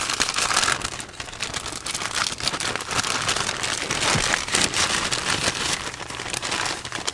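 Plastic zipper bag crinkling and rustling as hands open and handle it: a dense run of small crackles.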